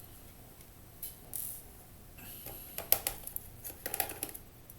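Scattered light clicks and scrapes of a screwdriver working the screws in a laptop's bottom case, in small clusters, the sharpest click about three seconds in.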